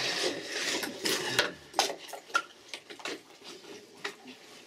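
Medical equipment being handled: a rustle in the first second, then a string of sharp clicks and knocks at irregular intervals.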